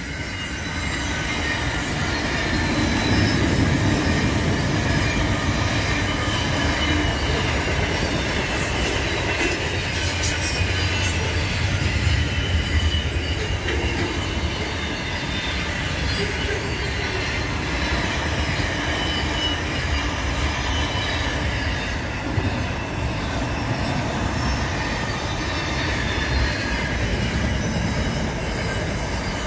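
Pacific National container freight train rolling past: a steady rumble of wagon wheels on the rails, with high thin whining tones from the wheels.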